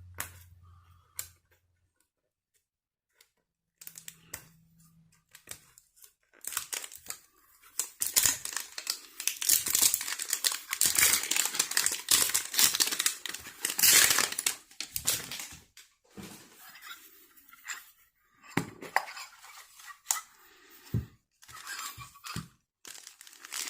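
Plastic shrink-wrap being torn and crinkled off a Pokéball collector tin: loud ripping and crackling for about ten seconds after a short pause, then scattered clicks and knocks as the tin and its contents are handled.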